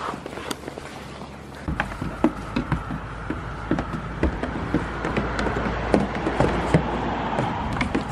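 Goat kids' hooves clattering and tapping irregularly on a wooden doghouse roof as they jump onto it and scramble about. A steady background rush comes in under the taps about two seconds in.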